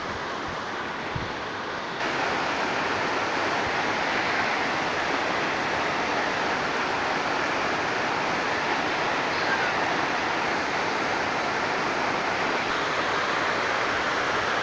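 Waterfall rushing steadily, growing a little louder about two seconds in.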